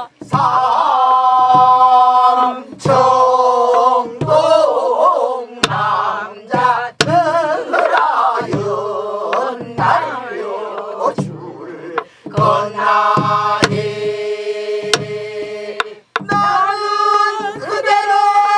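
A class of men and women sings a Korean Namdo folk song in unison with heavy vibrato, phrase after phrase with short breaths between. Buk barrel drums keep the rhythm underneath with low thumps and sharp stick clicks.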